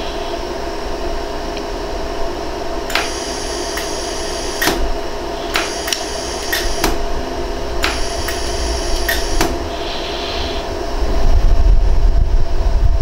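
iWeld 100-joule jewelry laser welder firing pulses at a gold ring's prong, about ten sharp clicks in three quick groups, over the machine's steady hum; these are the higher-power keyhole welding shots. A low rumble follows near the end.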